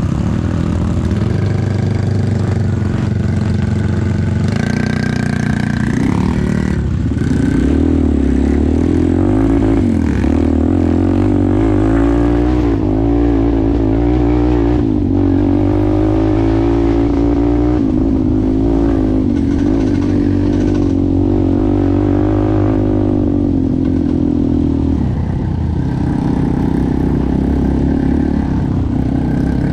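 ATV engine running under way, its pitch wavering up and down with the throttle; the revs pick up about a quarter of the way in and ease off again near the end.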